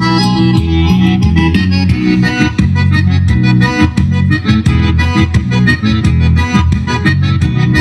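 Instrumental break of a Brazilian gaúcho song: accordion leading over a steady beat and strong bass, played loud through a vehicle sound system.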